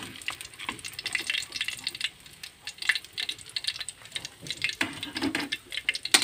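Hot oil crackling and popping in a steel wok of fried milkfish just after the flame is turned off, with a metal spatula and wire strainer scraping and clinking as the fish is lifted out. There are sharp metal clinks at the start and again at the end.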